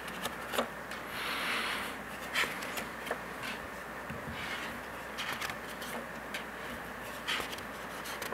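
Quiet room tone in a small hall, with a soft rustle about a second in and scattered small clicks and scrapes.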